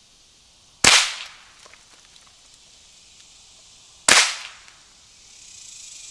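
Two shots from a Marlin Model 60 .22 rimfire semi-automatic rifle, about three seconds apart. Each is a sharp crack with a brief ringing tail.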